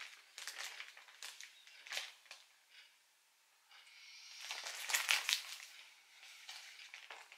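Clear plastic wrapping crinkling and rustling in irregular bursts as it is handled, with a short quiet pause about three seconds in and louder crinkling around five seconds in.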